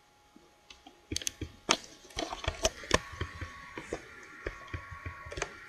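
A quick, irregular run of sharp clicks and taps, starting about a second in and going on to the end, over a faint steady hum.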